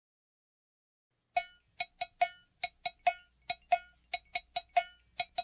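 Opening of a music track: after about a second of silence, a high, ringing percussion instrument like a cowbell plays a quick syncopated pattern, about four strikes a second, each hit ringing briefly.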